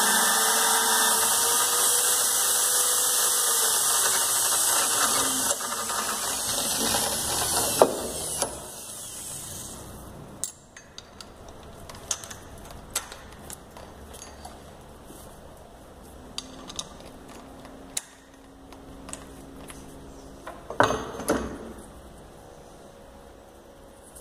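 Electric drill running with a wooden knob spinning in its chuck as it is shaped with a hand tool; the motor pitch sags partway through and the drill stops about eight seconds in. Scattered clicks and knocks of handling the drill and knob follow, with a louder clatter about three seconds before the end.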